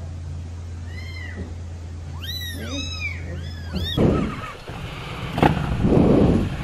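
A young kitten meowing about five times, each call high and arching up and down, over a low steady hum. After a cut about four seconds in, a motorcycle running, with a sharp click.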